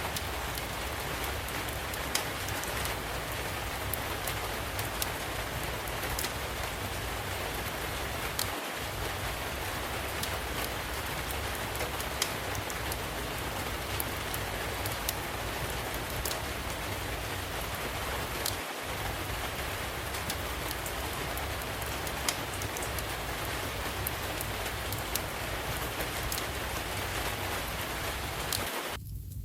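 Steady heavy rain, an even hiss, with occasional sharp ticks scattered through it. The rain cuts off abruptly at the very end.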